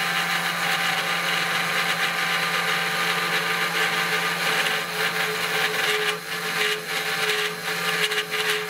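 Mini CNC machine's spindle and end mill cutting a slot in aluminium plate at 0.3 mm depth per pass: a continuous motor whine with the hiss of the cut. About five seconds in a steady mid-pitched tone joins, and near the end irregular ticks come through the cutting noise.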